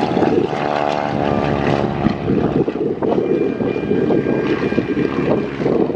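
Propeller airplane's piston engine and prop droning as it flies by. The sound turns rougher and noisier after about two seconds.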